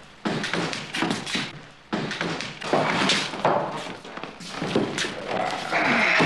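A run of heavy thumps and knocks, several sharp impacts in a few seconds.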